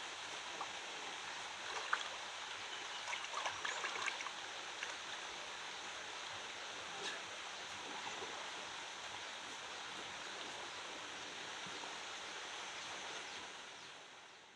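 Steady outdoor background hiss with a few faint ticks, fading out near the end.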